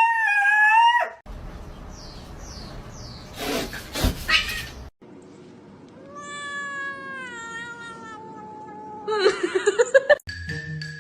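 A cat meowing: one long meow that falls in pitch over about three seconds, among other short animal calls broken up by abrupt cuts.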